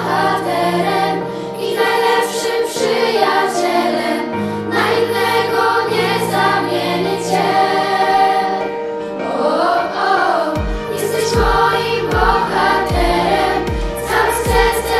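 A girls' choir sings a song over a backing track with held bass notes. A steady drum beat comes in a little over ten seconds in.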